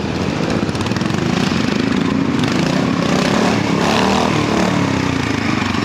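Classic Matchless trials motorcycle's four-stroke engine being ridden through a trials section, its note rising and falling with the throttle.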